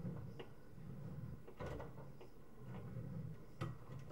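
Sewer inspection camera push cable being fed down a drain line: a low, uneven rumble with scattered clicks and knocks, the sharpest about a second and a half in and again near the end.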